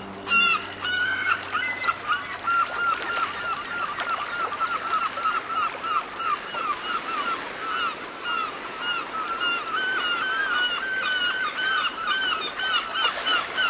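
A dense chorus of many animals calling at once: short, arching honk-like calls, several a second, overlapping throughout. Faint low music sits underneath during the first half.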